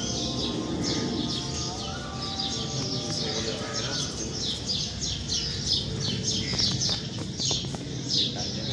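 Many small birds chirping busily, short high chirps several times a second without a break, over a low steady background murmur.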